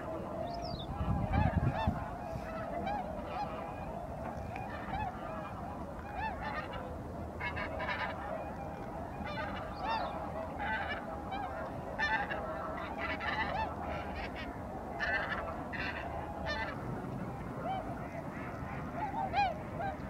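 Waterfowl calling: many short honking calls, repeated and overlapping throughout. A low rumble about a second in is the loudest moment.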